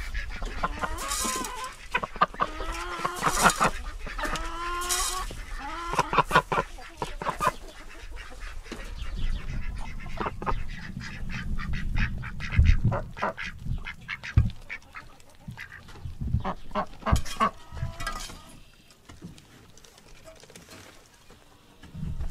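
Domestic ducks quacking, a run of loud, honking calls in the first several seconds that thin out later. Some dull low thumps come midway.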